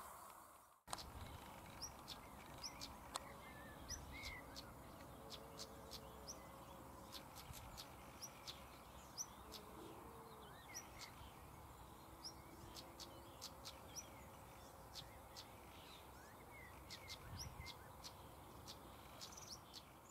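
Faint birdsong outdoors: many short, high chirps and ticks scattered throughout, with a few lower drawn-out calls among them.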